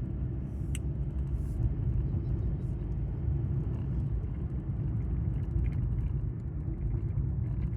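Steady low rumble of road and engine noise inside a moving car's cabin, with a light click under a second in.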